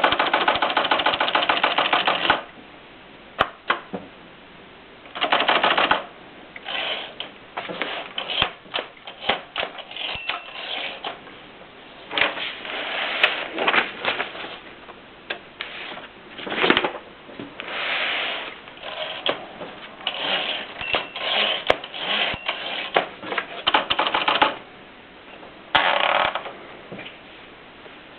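Olympia Elite typewriter in use: single key strikes and quick runs of clacks, broken by several stretches of dense, fast clatter each lasting one to two seconds.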